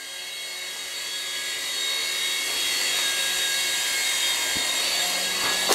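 A Sky Force Stunt Copter toy RC helicopter's small electric motors and twin rotors run with a high, steady whine. The whine grows louder over the first couple of seconds, then holds level.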